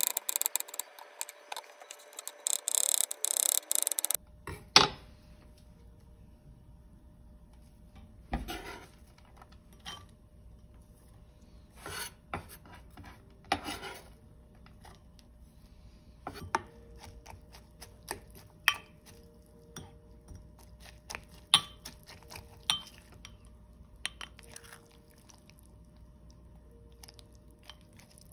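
Kitchen knife slicing green onion on a wooden cutting board in a quick run of strokes that stops about four seconds in. After that come scattered knocks and scrapes of the knife gathering the slices and of a silicone spatula stirring them into sauce in a glass bowl.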